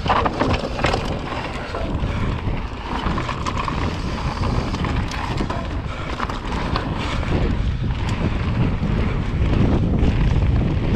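Mountain bike running down a dirt trail, with wind buffeting the microphone over the tyre noise. Short rattles and knocks from the bike come over bumps, most densely about a second in.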